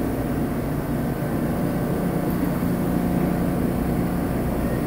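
A New York City subway train standing at the platform with its doors closed, giving off a steady drone with a low electrical hum.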